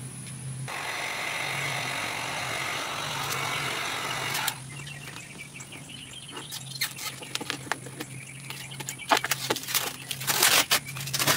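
A steady hiss for about four seconds, then scattered crackles and scrapes as old vinyl wrap is peeled by hand off a car's front fender. The crackling is busiest near the end.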